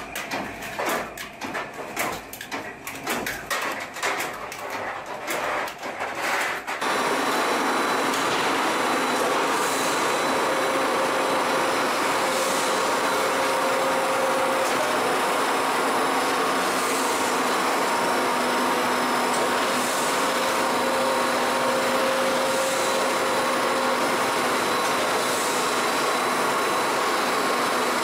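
An automatic egg-breaking machine clattering with rapid irregular clicks. About seven seconds in this gives way to a loud, steady mechanical noise from a metal profile twisting machine turning a steel bar into a spiral, with a faint hiss recurring every two to three seconds.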